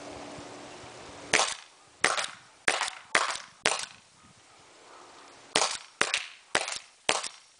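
Autococker paintball marker firing. Nine sharp pops come in two quick strings: five shots about half a second apart, a pause of about two seconds, then four more.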